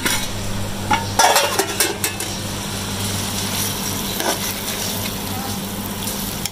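Metal spoon stirring and scraping cooked chicken keema in a metal pot, with a cluster of sharp scrapes and clinks about a second in, over a steady hiss and low hum.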